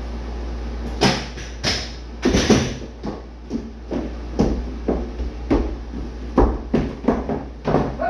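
High-heeled shoes stepping on a hardwood floor: a run of sharp knocks at about two a second, over a steady low hum.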